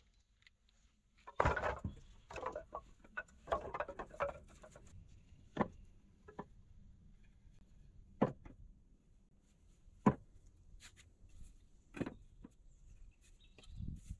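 Split wooden poles clattering and knocking against each other as they are laid down into a floor: a few seconds of clattering, then single wooden knocks about every two seconds.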